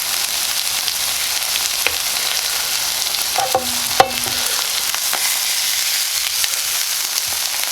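Chicken breasts sizzling steadily in a frying pan, with a sharp metallic clink from a utensil against the pan about four seconds in.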